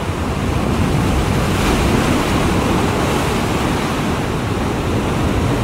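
Ocean surf breaking and surging against the rocks at the mouth of a sea cave: a loud, steady rush of white water, swelling about two seconds in.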